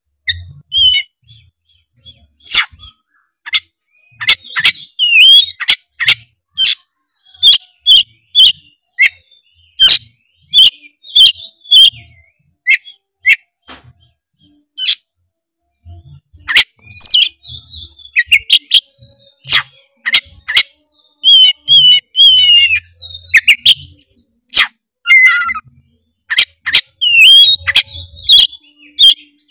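Oriental magpie-robin (kacer) in full, loud song: rapid bursts of sharp clicking notes mixed with whistled phrases and slurred trills, with a brief lull about halfway through.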